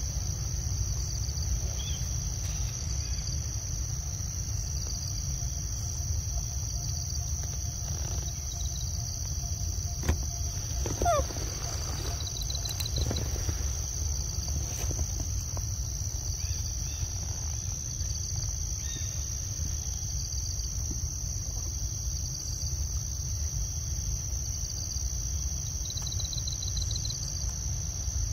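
Steady high-pitched chirring of insects, with pulsed trills now and then, over a constant low rumble. A few soft clicks and a short falling squeak come about ten to eleven seconds in.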